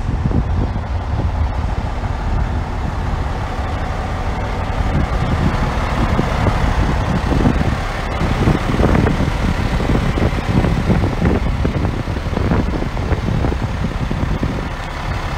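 Heavy truck idling: a steady low rumble with irregular buffeting at the bottom end.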